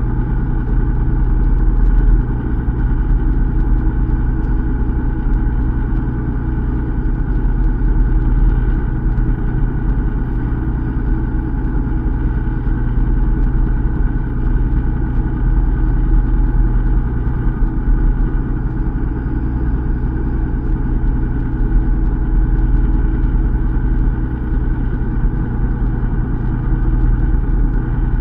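A fishing boat's engine running with a steady low hum.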